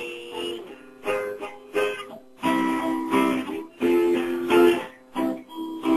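Music: acoustic guitar strumming chords, struck again and again, with no singing.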